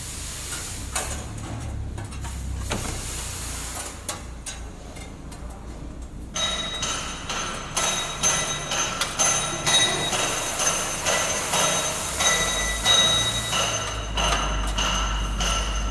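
Workshop machinery noise: a low rumble with occasional knocks, then about six seconds in a steady high machine whine starts, with dense clattering and knocking.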